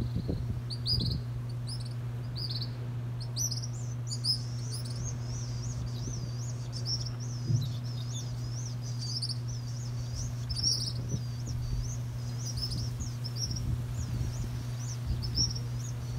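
Hungry young birds giving thin, high begging calls, repeated about twice a second and becoming more frequent after the first few seconds, as a parent bird feeds them. A steady low hum runs underneath.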